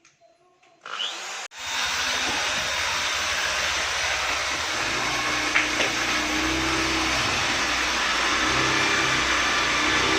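A power tool starts about a second in, cuts out briefly, then runs on with a steady whirring hiss.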